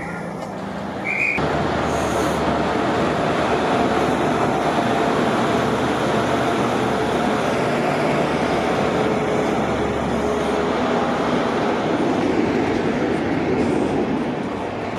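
LNER InterCity 125 High Speed Train running past and pulling away: steady rumble of wheels on rail from its Mark 3 coaches and the diesel class 43 power car at the rear. It comes in about a second and a half in and eases slightly near the end.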